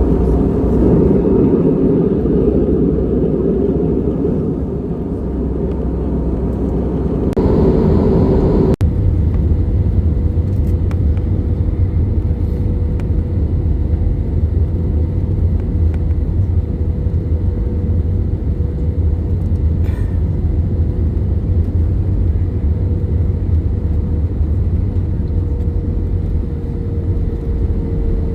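Airliner cabin noise in flight: a steady rumble and rush of air, with a steady engine hum. The sound changes abruptly about nine seconds in, at a cut.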